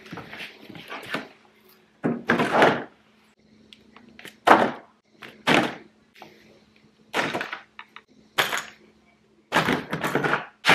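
Painting supplies set down one after another in a plastic paint tray on the floor: roller covers in plastic packaging, a sanding sponge and other tools. About half a dozen separate knocks and plastic rattles with short gaps between them.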